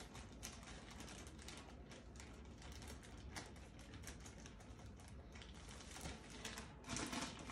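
Faint, irregular light clicks and taps over a low background hum, a little louder near the end.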